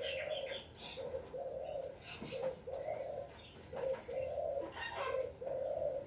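A pigeon cooing over and over, each coo a short low note followed by a longer one, about five times in a row. Other birds chirp higher above it.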